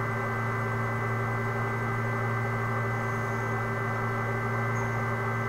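Steady electrical hum with a hiss over it: a low buzz with several higher tones, held unchanged throughout.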